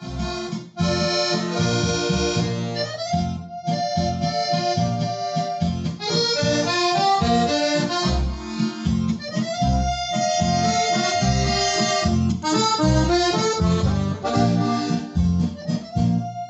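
Accordion music in Oberkrainer style from a MIDI accordion played through an HDS Pro.Sound 2 sound module: a melody of held notes over a steady, regular bass-and-chord accompaniment.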